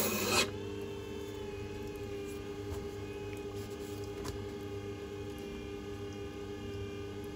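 Knife edge grinding on the wet stone of a Scheppach Tiger 3000VS wetstone grinder, a hiss that stops suddenly about half a second in as the blade is lifted off. The grinder's motor then runs on with a steady hum, with a couple of light clicks.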